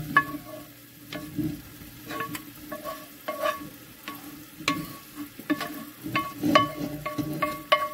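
Wooden spoon scraping and knocking ground beef and onions out of a cast-iron skillet into a stainless steel stockpot, the metal ringing briefly with each knock. The knocks come faster in the last couple of seconds.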